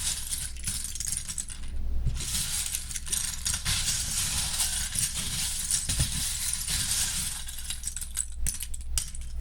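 Plastic Lego bricks rattling and clinking together in a dense run of small clicks, with a short lull about two seconds in.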